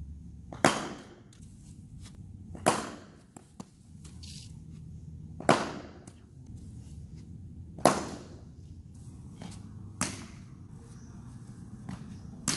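Cricket bat striking the ball, six sharp cracks about two seconds apart, each with a short echo from the indoor net hall.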